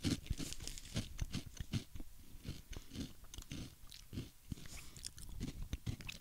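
Close-miked chewing of Yegam baked potato chips: a run of irregular, crisp crunches.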